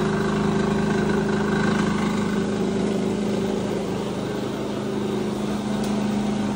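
Oil mill machinery pressing mustard seed, running at a constant speed with a steady, even hum.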